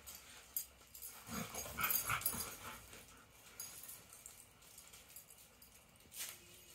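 Two dogs play-fighting, with a burst of dog vocalising about a second in that lasts over a second, amid scattered scuffling, and a brief sharp sound near the end.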